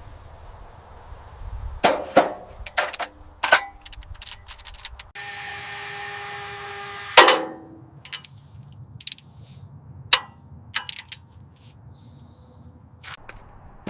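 Workshop work noise: a string of sharp metallic clanks and knocks, and a steady pitched whir from a tool for about two seconds that ends with the loudest clank.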